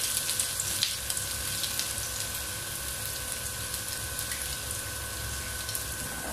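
Chopped ginger and garlic sizzling steadily in hot oil in a wok, a continuous fine crackle of frying.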